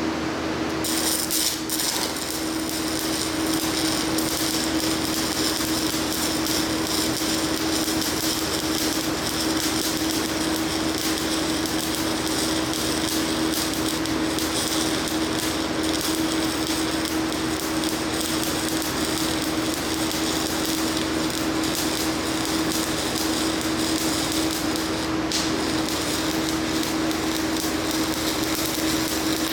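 Stick-welding arc laying a bead on cast iron with a Certanium 889 electrode: a steady crackling sizzle that strikes up about a second in and breaks off near the end, over the constant hum of the welding machine.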